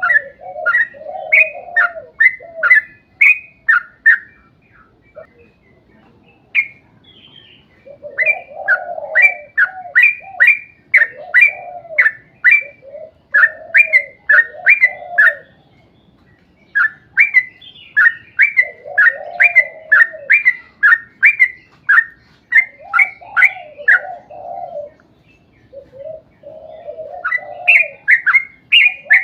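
Yellow-vented bulbul (trucukan) singing long, fast runs of sharp chirping notes, several a second, over lower bubbling warbles, with a few short pauses between runs.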